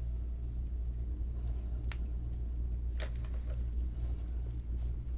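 Steady low hum, with two faint clicks about two and three seconds in.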